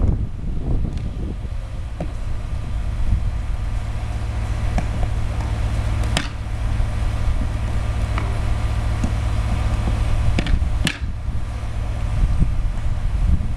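Steady low rumble, with scattered sharp knocks of building work; the two loudest knocks come about six and eleven seconds in.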